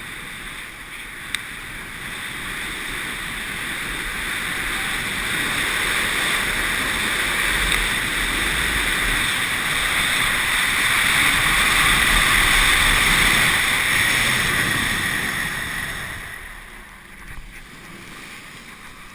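Wind rushing over a helmet-mounted action camera, with water hissing and spraying under a towed water ski, rising to a peak in the middle and dropping away near the end.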